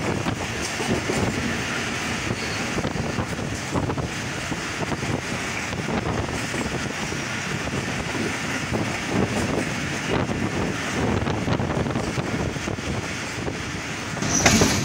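Moving passenger train heard from the coach's open window: a steady rumble of wheels on the track with wind buffeting the microphone, and a louder burst near the end.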